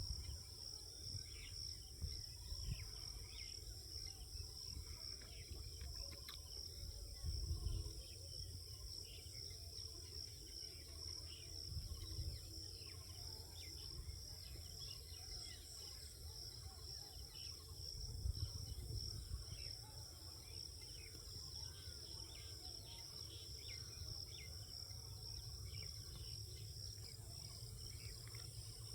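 Steady, high-pitched chorus of crickets, broken now and then by low rumbles, the loudest about a quarter of the way in.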